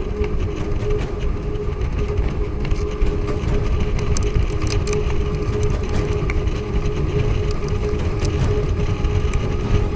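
A vehicle driving: a steady low rumble with a constant droning tone, and scattered clicks and rattles.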